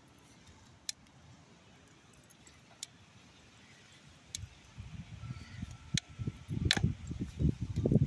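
Wind buffeting the microphone in gusts, which grow loud from about halfway through. A few light metallic clinks from a small dog's collar tags come through it.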